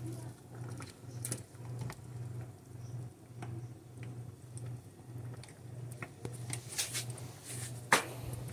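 Tongs clinking and scraping against a stainless steel pot as chicken drumsticks are turned in hot broth, a few light knocks with one sharp clank near the end. Underneath, a low hum pulses evenly about one and a half times a second.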